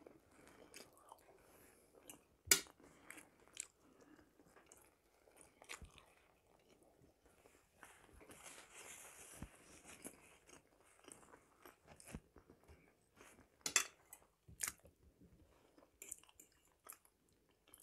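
Faint close-up chewing of boiled potato and marinated herring, with soft wet mouth sounds. A few sharp clicks and smacks break in, the loudest about two and a half seconds in and twice near fourteen seconds.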